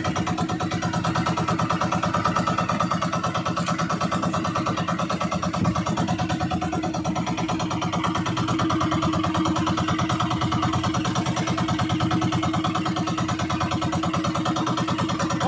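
Outrigger fishing boat's engine running steadily, a fast, even chugging beat that holds without change.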